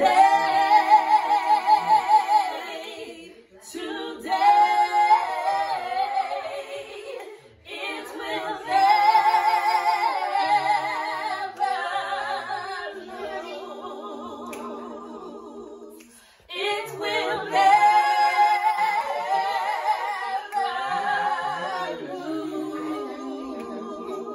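Three women singing a gospel song about the blood of Jesus a cappella, without instruments. There are four long phrases with vibrato, each followed by a brief pause for breath.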